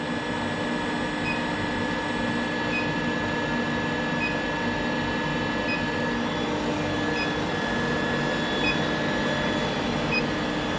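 Induction heater running steadily, a constant electrical hum with a fixed high whine, while it heats a steel bar for hot cutting. A faint short blip comes about every one and a half seconds.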